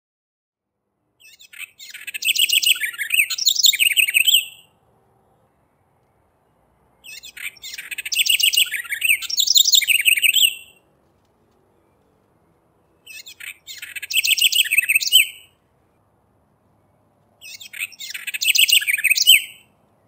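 Southern house wren singing: four songs, each a rapid, jumbled run of high notes lasting two to four seconds, separated by short pauses.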